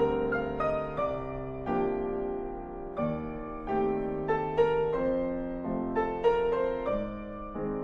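Slow, gentle piano music: single notes and chords struck one after another, each ringing out and fading before the next.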